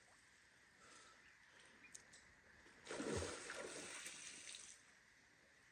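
River water splashing and sloshing once, for a little under two seconds, about three seconds in, against an otherwise quiet background.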